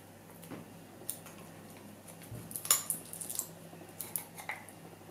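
Pliers clicking and scraping on the opened metal casing of a cheap lithium battery cell as its thin inner foil is picked out: scattered light metallic clicks, busiest about halfway through.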